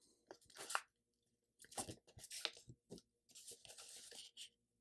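Faint crinkling of a sheet of letter-size paper being creased and folded by hand: a few short crackles, then a soft sliding rustle near the end.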